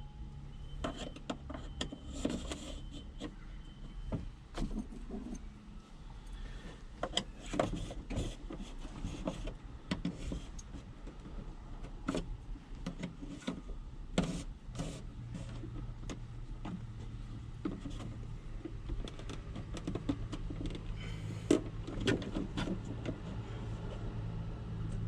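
Clicks, taps and plastic rattles from hands working an HVAC control panel loose from its dash mount and prying at its tabs. Underneath runs a steady low hum that grows louder about fifteen seconds in.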